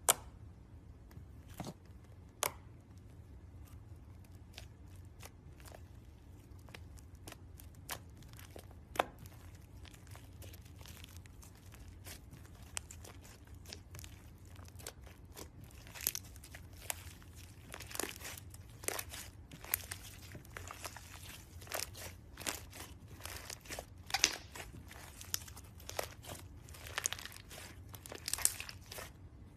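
Slime being squeezed and worked by hand, giving sharp pops and crackles. They come a few at a time at first and grow much more frequent about halfway through.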